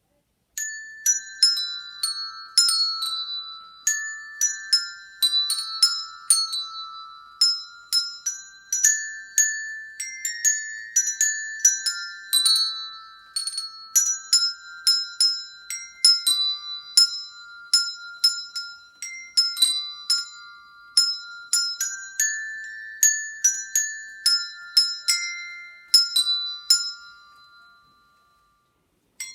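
Set of tuned handbells playing a Christmas tune, each note struck and left to ring out. The tune starts about half a second in and dies away shortly before the end.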